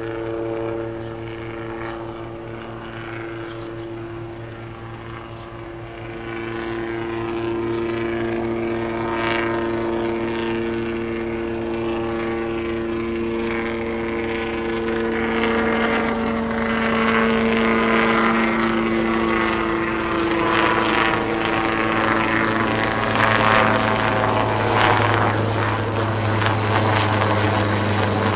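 Small police helicopter flying low toward the listener and passing nearly overhead: a steady engine whine with rotor-blade chop that grows steadily louder through the pass.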